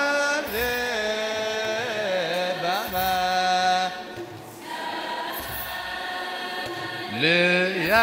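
Choir chanting a wereb, Ethiopian Orthodox liturgical chant, in long, bending, melismatic vocal lines. The singing drops softer about halfway through and swells louder again near the end.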